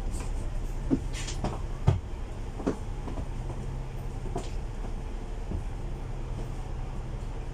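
Interior of a standing Volvo B8L double-decker bus: the diesel engine idling with a steady low hum, and a few sharp rattles and knocks from the body in the first half, the loudest about two seconds in.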